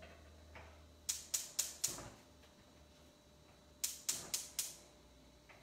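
Gas range burner's spark igniter ticking as the burner is lit, in two runs of about four quick clicks each, about four a second.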